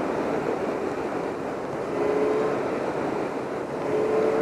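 BMW S1000R inline-four engine cruising in sixth gear at about 4,000 rpm, its note rising briefly twice as the throttle is opened and closed, over steady wind and road rush. The exhaust stays well muffled.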